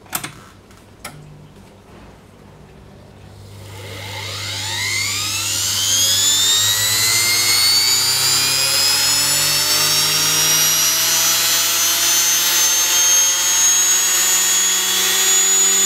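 Miele washing machine universal motor, field coils and armature in series, running unloaded on about 115 V AC: after two sharp clicks it spins up with a steeply rising whine and then runs at a steady, very high pitch. This is the runaway speed of a series-wound motor with no speed control, going well past 11,500 rpm on only half its rated voltage.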